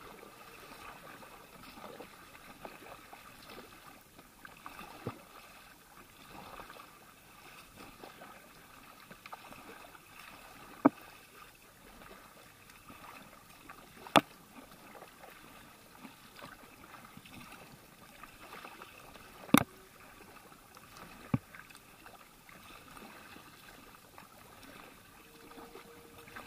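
Kayak paddle strokes in open sea water: a steady soft splashing and dripping as the blades dip in turn. Four sharp knocks stand out, the first about eleven seconds in and the last near three quarters of the way through.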